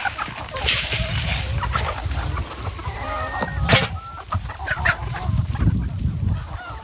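A flock of chickens clucking, with many short overlapping calls and rustling, and one sharp tap about four seconds in.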